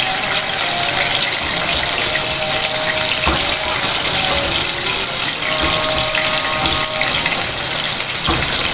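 Breaded chicken fillets deep-frying in a pan of hot oil: a steady, loud sizzle. A couple of brief soft knocks sound over it, one about three seconds in and one near the end.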